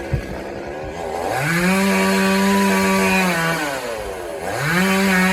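Chainsaw engine revved up to full throttle and held steady for about two seconds, dropping back to idle, then revved again near the end. A single sharp knock just after the start.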